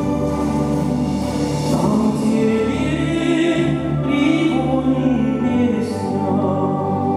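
A male voice singing a slow, sustained classical melody with grand piano accompaniment.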